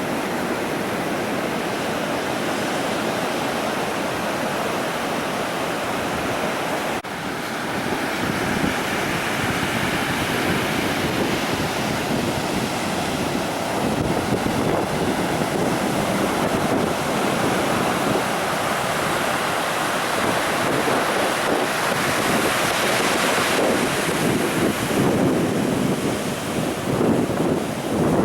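Ocean surf washing on a beach, a steady roar of breaking waves, with wind buffeting the microphone. It drops out briefly about seven seconds in and comes back a little louder, then swells unevenly near the end.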